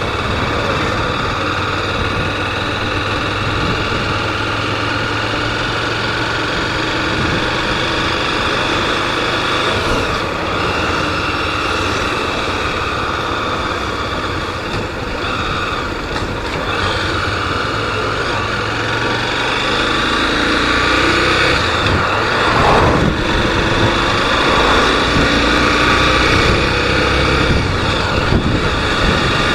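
Honda Twister motorcycle's single-cylinder 250 cc engine running while riding. It grows louder over the last third.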